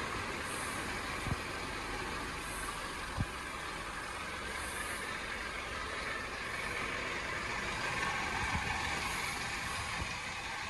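Steady mechanical hiss and hum of car wash equipment running, with a few soft knocks. The hiss grows a little stronger in the second half.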